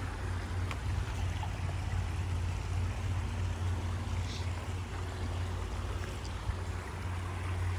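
Creek water flowing steadily, over a steady low rumble, with a brief faint high chirp about four seconds in.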